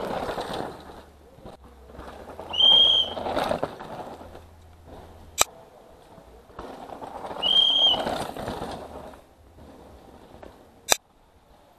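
Downhill mountain bikes going past on a dirt forest track: three swells of tyres scrabbling and skidding over loose dirt, each starting with a short high squeal of disc brakes as the rider brakes. Two single sharp clicks come in between.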